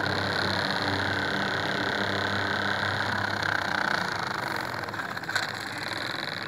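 Small motor and gears of a toy mini tractor whirring steadily as it pulls a tined cultivator through sand, getting somewhat quieter about two-thirds of the way through, with one sharp click near the end.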